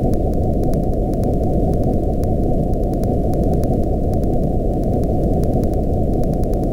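Steady synthetic noise cut off sharply above the low and lower-middle range, so it sounds like a deep, even rushing hiss with no high end. Faint ticks sit over it.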